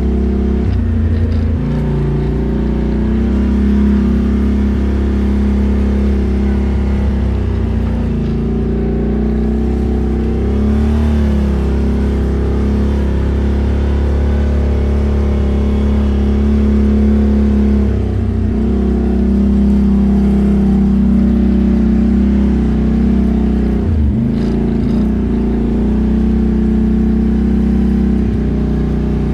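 ATV engine running under way, a steady drone whose revs dip and pick up again a few times: about a second in, around ten seconds in, and near 18 and 24 seconds.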